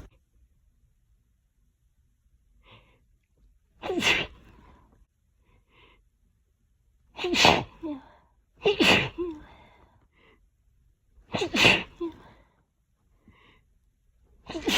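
A person sneezing over and over in an allergy fit: four loud sneezes a few seconds apart, with a fifth starting at the very end and faint breaths or sniffs between them.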